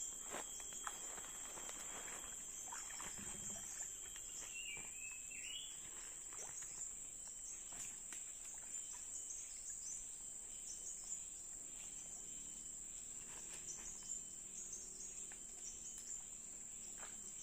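A steady, high-pitched drone of insects runs unbroken throughout. A short wavering whistle-like call comes about five seconds in, with a few faint knocks scattered through.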